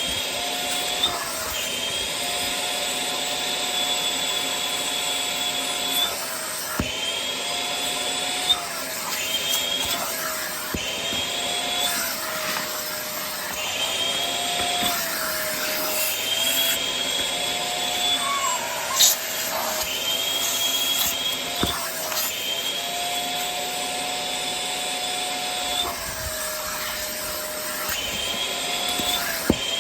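Vacuum cleaner running steadily with its attachment, its motor whine dipping and rising in pitch every second or two, with a few sharp knocks along the way.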